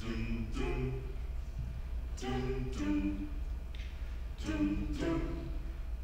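A mixed-voice a cappella group singing the opening chords of an arrangement with no instruments, in short two-chord phrases that repeat about every two seconds.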